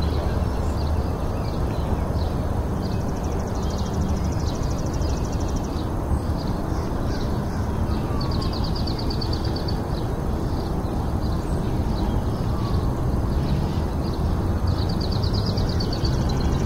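Birds chirping, with a rapid trill about three seconds in, another about eight seconds in and a third near the end, over a steady low rumbling background noise.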